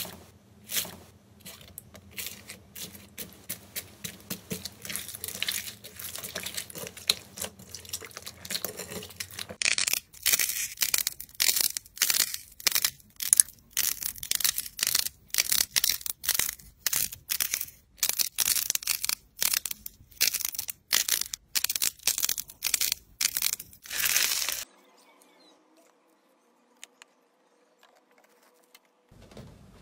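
Hands squishing a slime coated in tiny foam beads, giving dense small crackles and pops; from about ten seconds in, louder sharp cracks and crunches, several a second, as hollow dried clay balls are broken open and crumbled. Near the end it drops to near silence with a faint hum.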